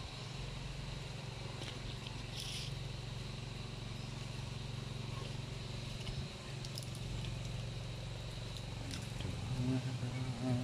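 Steady low mechanical hum with a faint, steady high whine above it and a brief hiss about two and a half seconds in.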